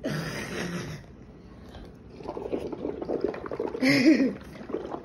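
Air blown through a straw into a cup of chocolate milk, bubbling and gurgling irregularly, loudest about four seconds in. A short rustling noise comes at the start.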